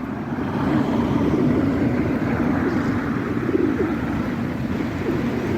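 Pigeons cooing in low, wavering coos over a steady background hum.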